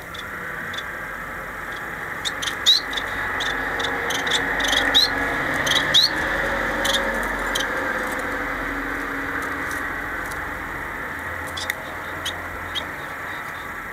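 Caged society finches giving short, sharp chirps with quick upward flicks, thickest in the first half and a few more near the end, over a steady rushing background noise that swells and then slowly fades.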